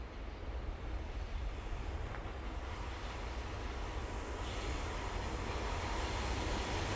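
Providence and Worcester freight train approaching, its rumble growing steadily louder as it nears. A faint steady whine joins in about halfway.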